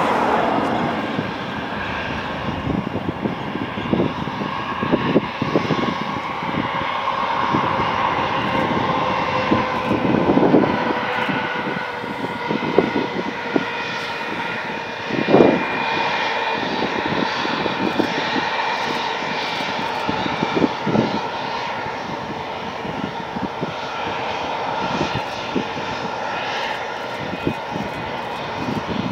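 Steady engine drone holding an even pitch, with irregular knocks and clicks over it, the loudest about halfway through.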